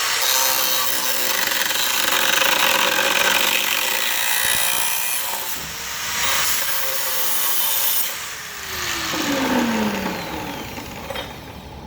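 An angle grinder cutting through steel angle iron with a harsh, continuous grinding. Near the end the motor is released and its hum falls steadily in pitch as the disc spins down.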